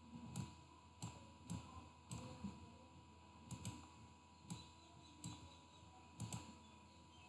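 Faint, irregular computer mouse clicks, about a dozen, each a sharp tick with a soft thud, over a faint steady tone.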